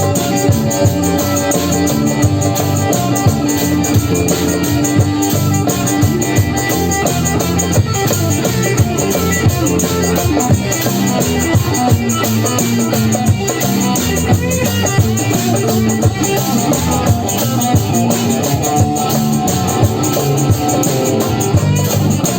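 Live psychedelic-trance jam music: a fast, driving percussion pattern with shaker-like rattles over a bass line that steps between notes.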